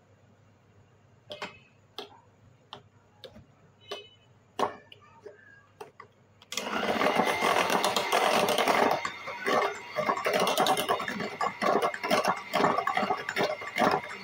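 A few light taps, then about six and a half seconds in an electric hand mixer switches on and runs loudly, its beaters whipping cream in a glass bowl.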